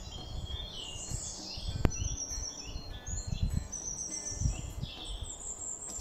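Birds calling in woodland: many short chirps and high whistled notes overlap throughout. Wind rumbles on the microphone in gusts, and there is one sharp click about two seconds in.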